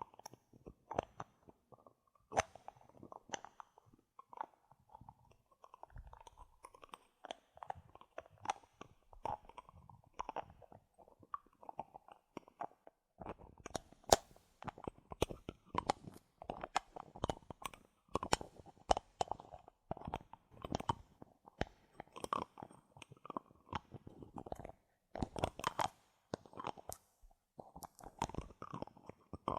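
Bottle caps being handled: a dense, irregular run of sharp clicks and short crackles.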